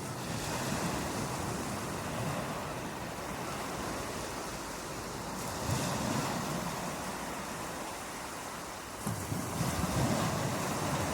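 Ocean surf breaking on a beach: a continuous wash of waves, with a louder wave surging in about six seconds in and another near the end.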